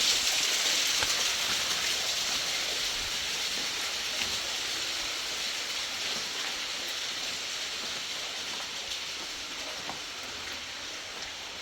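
Steady hiss of rushing river water, slowly growing fainter.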